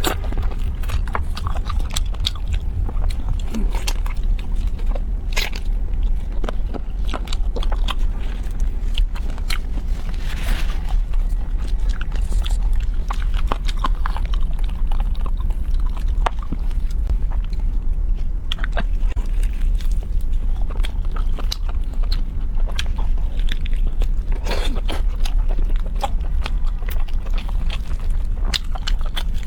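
Close-miked biting and chewing of food, with many sharp crunchy clicks and crackles, over a steady low hum.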